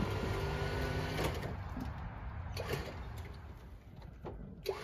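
Electric winch whirring steadily for about a second and then stopping, followed by a few sharp clicks and knocks of cable and metal as the truck starts to roll on the trailer, the loudest click near the end.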